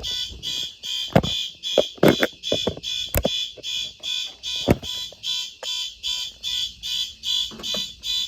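Fire alarm horns sounding in a fast, even pulse of about three beats a second, high-pitched and loud, with a few sharp knocks of handling in the first half.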